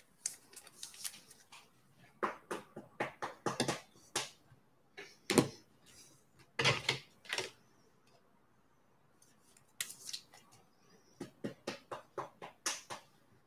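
Foil trading-card pack wrappers crinkling and tearing as packs are opened and the cards handled. The sound comes as irregular clusters of crackles and snaps, loudest about five and a half and seven seconds in.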